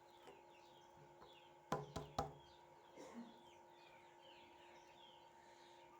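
Three quick knocks in a row, a little under two seconds in, over a background of birds chirping and a faint steady hum.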